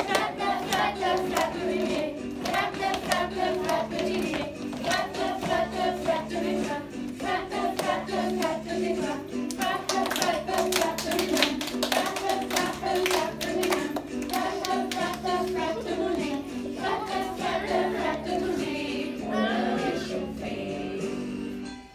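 A class of young children singing a French song in unison over musical accompaniment. The singing and music stop just before the end.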